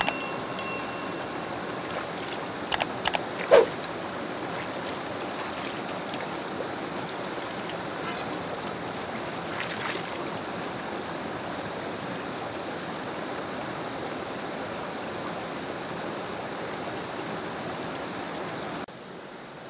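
Mountain stream running steadily over rocks, with a few splashes and plops from hands washing a raw chicken and rinsing a metal tray in the water. A short bell-like chime rings right at the start, and the water sound drops abruptly near the end.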